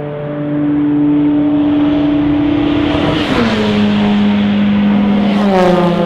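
Endurance race cars passing at speed. Each engine note holds steady, then drops in pitch as it goes by, once about three seconds in and again near the end.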